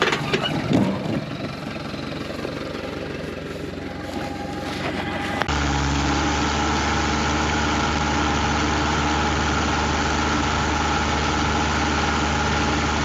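Kubota M105S tractor's diesel engine running. About five seconds in the sound jumps to a louder, steady engine drone that holds.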